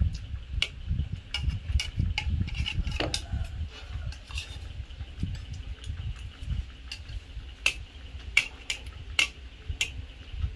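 Kitchen utensils clinking and knocking against pots and dishes during cooking: scattered sharp clicks, the loudest a few near the end, over a low rumble.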